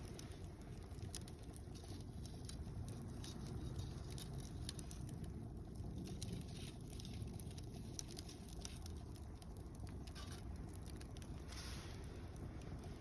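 Wood campfire of mixed softwood and hardwood logs burning, with irregular sharp crackles and pops over a low, steady rumble.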